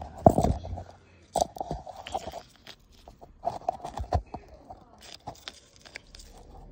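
Close rustling and crackling of grass stalks being handled right against the microphone. It comes in several short, irregular bursts with quiet gaps between them.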